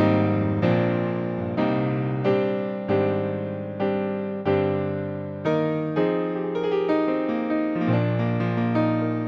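Yamaha P-125A digital piano playing a run of chords, struck about once a second and each dying away. The chords give way to smoother held notes after about six seconds.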